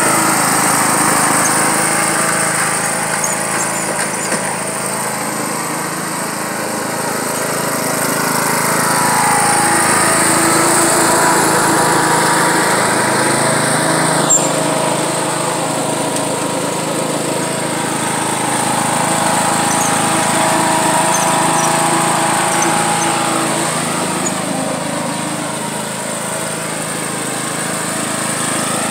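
John Deere riding lawn mower's engine running steadily under load while towing a rider on a sled through mud, growing louder and quieter as the mower moves about.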